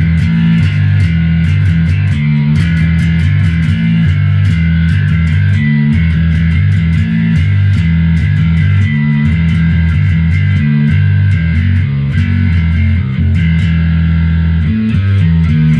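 Bass guitar in B standard playing a heavy, distorted riff through an Ashen APG1000.2 bass head and a Trace Elliot 6x10 cabinet, the signal compressed and driven by the Neural DSP Parallax distortion on a Quad Cortex. Loud, low notes that shift every fraction of a second, with sharp picked attacks.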